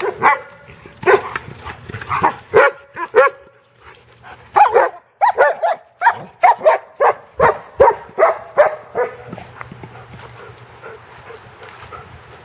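Excited dog barking during play: short, loud barks in quick succession, about two a second. They break off briefly around four seconds in and stop about nine seconds in.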